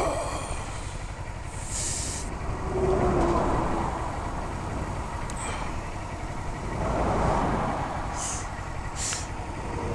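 Strong wind buffeting the microphone over a motorcycle riding on the highway, the roar swelling twice, with a few short hissing gusts.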